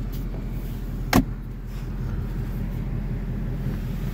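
The Ford Mustang 5.0 V8 running, heard inside the cabin as a steady low hum. One sharp knock comes about a second in.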